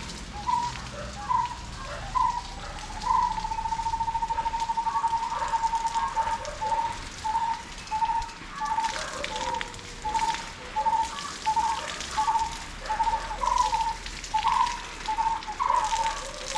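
Water spraying from a garden hose onto plants, a steady hiss and patter, with a bird's repeated chirping calls over it: a fast trill a few seconds in, then single chirps about twice a second.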